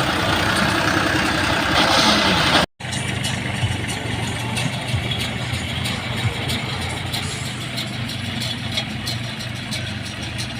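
Diesel tractor engine running steadily. The sound drops out for a moment about three seconds in, then the engine carries on with faint scattered clicks.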